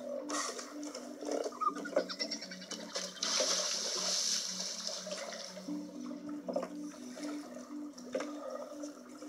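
Water splashing and sloshing, with a louder rush of water about three seconds in, over a soft repeating low musical figure.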